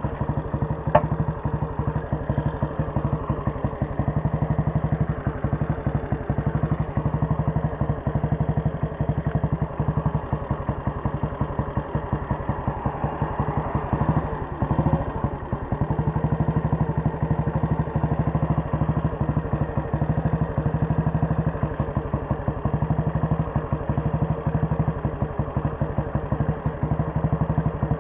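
The single-cylinder engine of a 1939 Red Panther Model 40 motorcycle idling with a steady, even beat, which wavers briefly about 14 seconds in.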